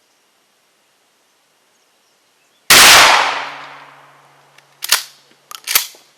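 A single slug fired from a 12-gauge Remington 870 pump shotgun, a sharp blast nearly three seconds in with a long echoing decay. About two seconds later there are two sharp metallic clacks as the pump slide is worked back and forward to chamber the next round.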